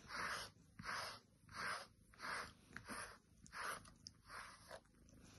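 A grooming brush swishing through a cat's fur in repeated strokes, about one and a half a second, stopping near the end.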